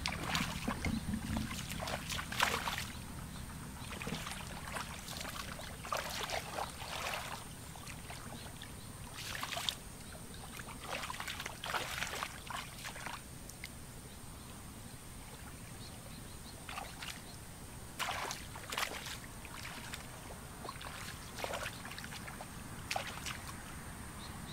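Bare feet wading and stamping through shallow muddy water, with irregular splashes and sloshes every second or so and a few quieter stretches between.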